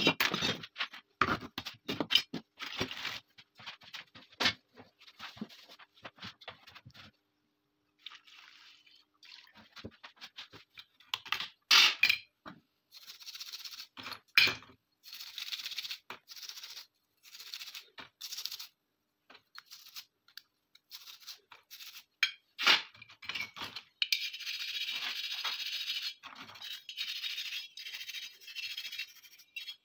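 Small steel pistol parts clicking and clinking as they are handled. From about eleven seconds in, a stiff bristle brush scrubs a pistol magazine and small parts wet in a tray of cleaning liquid, in short scratchy strokes that become steadier over the last few seconds.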